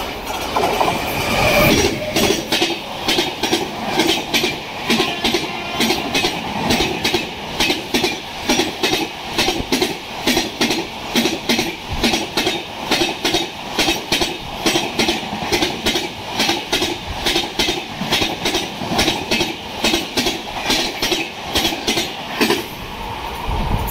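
Indian Railways express train passing at speed, its wheels clattering over the rail joints in a steady rhythm of about three beats a second.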